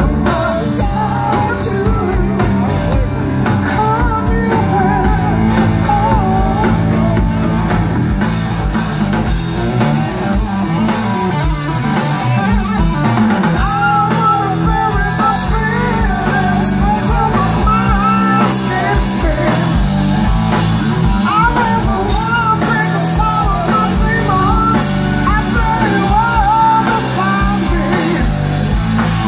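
Live rock band playing loud through a PA, heard from the crowd: electric guitar lead with wavering, bending notes over bass and drums. The sound gets brighter about eight seconds in.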